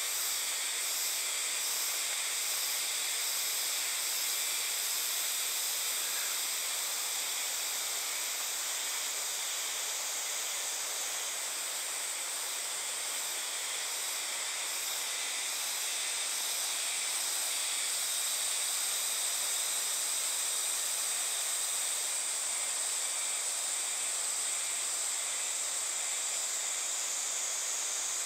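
Steady summer insect chorus, typical of cicadas, high and shimmering with a pulsing trill near the start and again partway through, over the rush of a river running over rapids.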